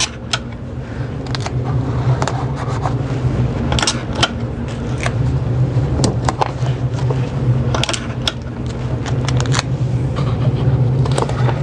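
Steady low mechanical hum with scattered sharp clicks and light rustles, cutting off suddenly at the end.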